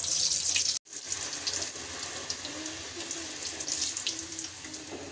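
A puri deep-frying in hot oil: a steady sizzling hiss with small crackles, cutting out for an instant just under a second in.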